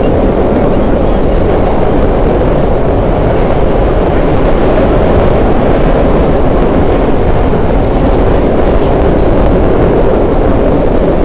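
Vintage IND R1/9 subway car running at speed, heard from inside the car: a loud, steady rumble of wheels on rail and running gear that holds unchanged throughout.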